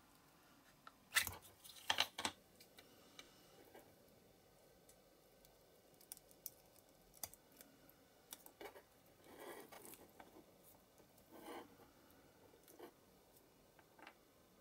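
Faint handling sounds of a small silicone mould and fine hobby tools: scattered sharp clicks and taps, the loudest a few about a second and two seconds in, with soft rubbing and rustling later on.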